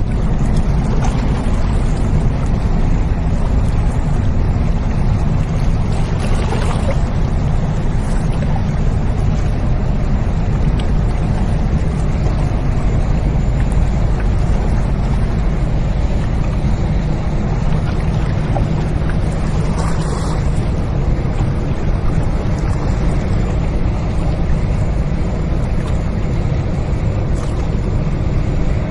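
The engine of a ship loaded with about 80 sea containers, running as it moves down the river, heard as a steady low drone. Two brief hissing swells rise over it, about a quarter and about two-thirds of the way through.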